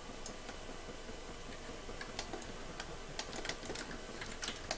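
Irregular clicks of a computer keyboard and mouse as shortcuts are pressed and objects dragged, over a steady faint hiss.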